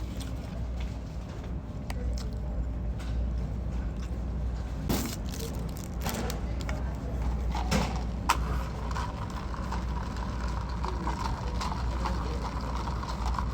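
Handling and eating sounds, with scattered clicks and knocks from plastic takeout containers and utensils, over a steady low rumble.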